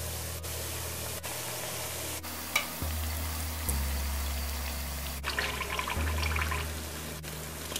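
Hot oil sizzling steadily around gojas (coconut-filled turnovers) deep-frying in an aluminium pot. The crackling gets brighter for about a second just past the middle while a slotted spoon moves through the oil.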